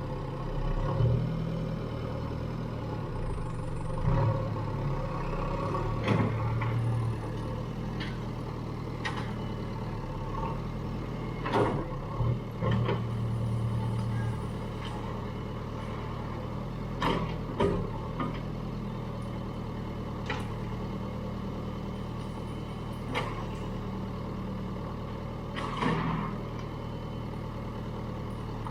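A JCB demolition machine's diesel engine running steadily and rising under load at times, with about ten separate crashes and knocks of material being broken and dropped, the loudest about a dozen seconds in.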